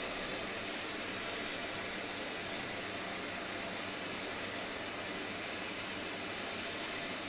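Electrolux Aqualux EW1006F washing machine filling its drum with water, a steady hiss of water rushing in through the inlet.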